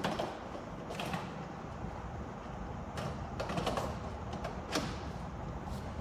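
A few light knocks and clicks, with some rubbing, from hands handling the plastic fire-alarm devices on a demonstration board, over steady room noise.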